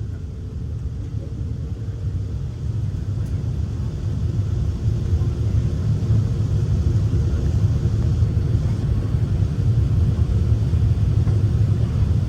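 Airbus A380 engine and airframe rumble heard from inside the passenger cabin: a steady low rumble that grows louder about four to five seconds in.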